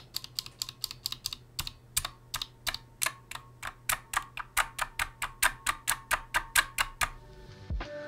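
A bare Kailh Blue clicky keyboard switch, its keycap removed, pressed again and again by a finger: a fast run of sharp clicks, about five a second, stopping near the end.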